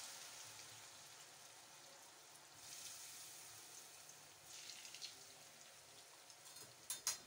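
Rice-flour-coated potato fries deep-frying in very hot oil in a wok, a steady sizzle that slowly dies down after they go in, with a sharp click near the end.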